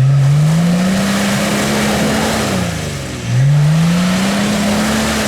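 Off-road 4x4's engine revved hard twice, pitch climbing and holding high each time, as the vehicle digs its wheels into mud and water.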